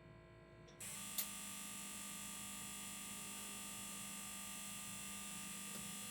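Desktop PC starting up less than a second in, with a sharp click just after, then its fans running with a steady whir and hum.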